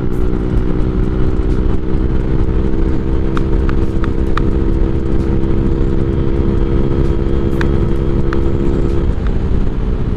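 Honda Click scooter's single-cylinder engine running at a steady cruise, heard under heavy wind buffeting on the mounted camera's microphone. The engine's steady hum fades out near the end.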